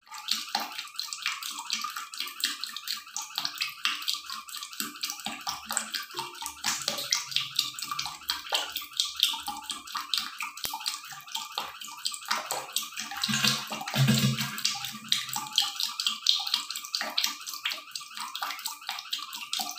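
Water running and splashing steadily: an even hiss made of many small splashes.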